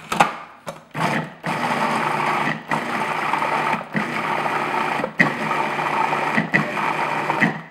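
Food processor motor running to beat a cream cheese, sugar and egg filling: a couple of short pulses, then a steady run of about six seconds that cuts off near the end.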